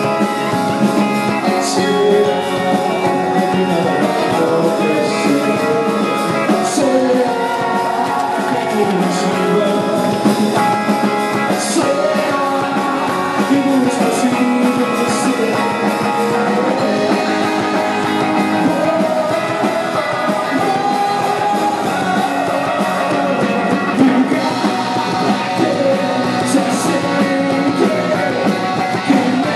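A rock band playing a song: guitars under a sung melody line.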